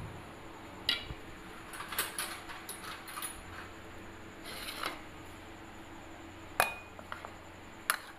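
Glass bowls and dishes being handled, with scattered light clinks and taps and two sharper clinks near the end, over a faint steady hum.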